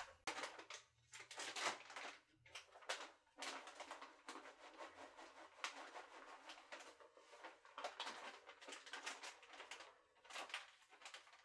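Shredded mozzarella cheese being shaken out of its plastic bag onto cooked elbow macaroni in a baking pan. The bag crinkles and the shreds land in a dense, continuous run of soft crackles and rustles.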